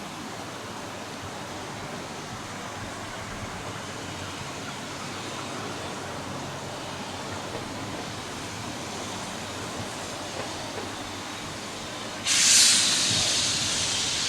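A steady background rush, then near the end a sudden loud hiss as a steam locomotive vents steam, loudest at its onset and easing off a little.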